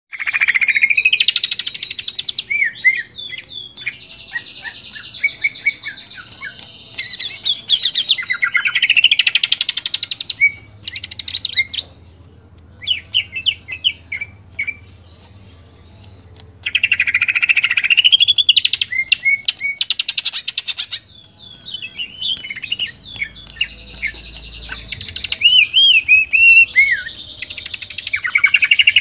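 Cucak ijo (green leafbird) singing a loud, varied song. Phrases of fast trills, rising and falling whistled glides and chattering notes come in bursts of one to four seconds, with short pauses between them.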